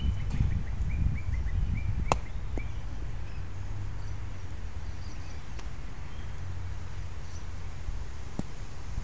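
Wind rumbling on the microphone, with a bird chirping a quick run of short high notes over the first two seconds or so. A single sharp click comes about two seconds in, and a fainter one near the end.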